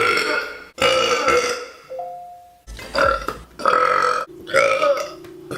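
A woman burping loudly, five or six long burps one after another.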